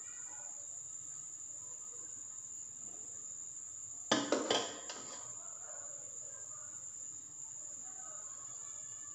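A serving spoon knocking against dishware four or five times in quick succession about four seconds in, as rice is scooped onto a plate. A steady high-pitched whine runs underneath throughout.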